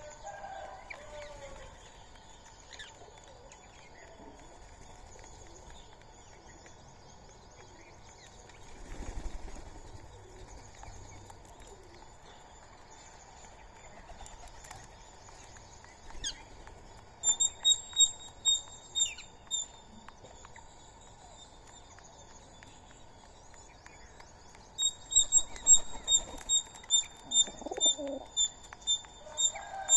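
Rapid runs of sharp, high chirps, about five a second, in two bouts in the second half, from an animal at the feeding spot. A brief soft rush about nine seconds in, with faint calls in the background throughout.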